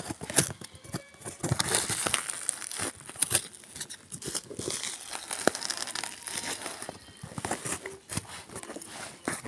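Cardboard shipping box and plastic bubble wrap being handled and pulled open: irregular crinkling and rustling with tearing sounds and scattered short knocks.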